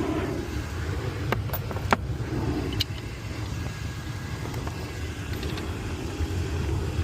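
Steady low rumble with a few sharp metallic clicks and taps between about one and three seconds in, one of them with a brief high ring.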